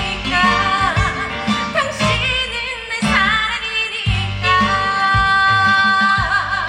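A woman singing a trot song live over a backing track with a steady bass and drum beat. Near the end she holds a long note with vibrato.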